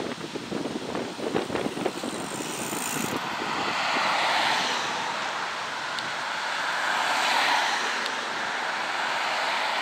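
Road traffic on a city street: cars passing close by, their tyre and engine noise swelling twice, about four seconds in and again near the end. A run of sharp crackles sounds in the first two seconds.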